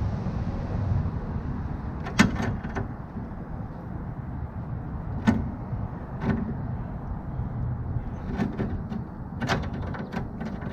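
Sharp metallic clicks and creaks, about seven spread a second or more apart and loudest about two seconds in, as the smooth jaws of a Knipex pliers wrench grip and squeeze the bent double-layer sheet-steel edge of an old Snap-on toolbox to press it flatter.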